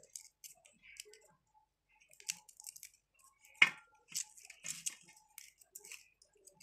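Papery skins of sun-dried garlic cloves crackling and rustling as they are peeled off by hand, in small scattered bursts, with one sharp tap about three and a half seconds in.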